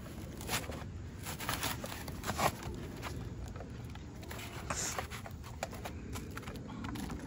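Scattered light clicks and knocks of e-bike parts and packaging being handled, irregularly spaced, over a steady low background rumble.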